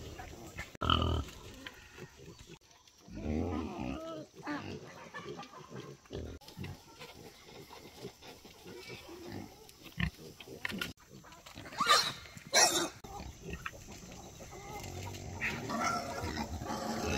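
Pigs calling at intervals, with two short, loud, sharp cries close together about twelve seconds in.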